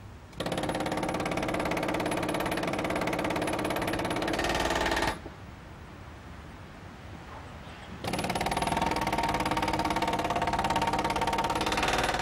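Pneumatic spike driver (air hammer) hammering rail spikes down into timber sleepers: a loud, very rapid rattle of blows with a ringing metallic tone, in two bursts of about four and a half seconds each, the second starting about eight seconds in.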